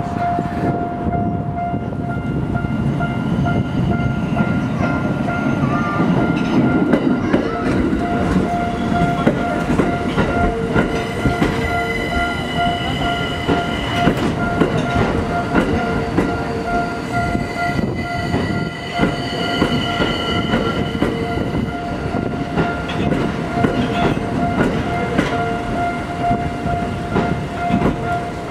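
Japanese level-crossing warning bell ringing continuously while a Tokyo Metro Ginza Line train passes over the crossing, its wheels rumbling and clattering over the rails.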